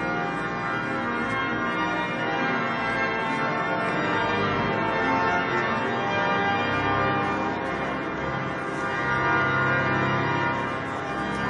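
Church bells pealing continuously together with sustained organ-like tones, echoing inside a large cathedral nave.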